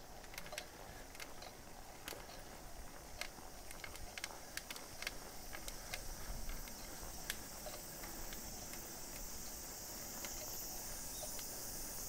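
A road bike rolling along a narrow road, with scattered light clicks and ticks from the bike and a low rumble from the tyres. A steady high drone of summer insects grows louder over the second half.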